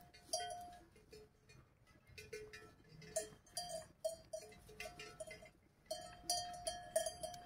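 A bell on a grazing cow clanking in irregular runs of strokes, one fixed ringing note each time, with short gaps between runs and the strokes coming thickest near the end.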